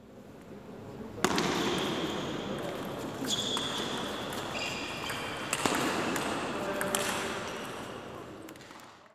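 Table tennis rally with the sharp clicks of the ball being struck, under a crowd of spectators cheering and shouting. The crowd noise rises suddenly about a second in and fades out near the end.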